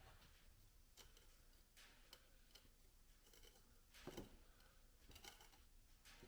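Near silence with a few faint clicks and creaks, the clearest about four seconds in, from a hand-pumped hydraulic shop press bearing down on a bent steel part.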